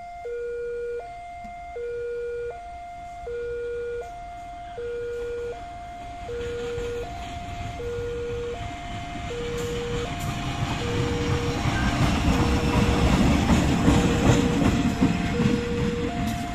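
A level-crossing warning alarm sounds two alternating tones, changing about every three-quarters of a second. From about six seconds in, a CC 203 diesel-electric locomotive running alone on a shunting move draws near. Its engine and wheels grow louder and are loudest near the end.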